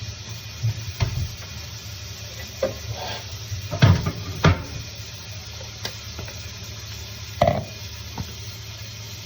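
Chicken sizzling in a pan of oil, with a utensil stirring it and knocking against the pan about half a dozen times, loudest around the middle.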